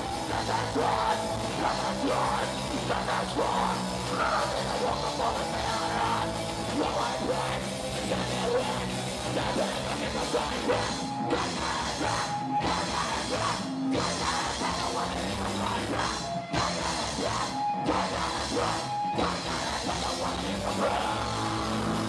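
Punk rock band playing live: distorted guitars, drum kit and a singer yelling into the microphone, dense and loud, broken by several brief gaps about halfway through.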